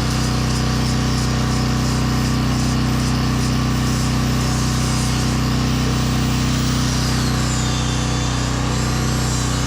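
Portable generator running steadily with a high-pitched handheld power sander whining over it as it works the wood. The sander's pitch dips once about seven seconds in, as if it is pressed harder, and comes back up near the end.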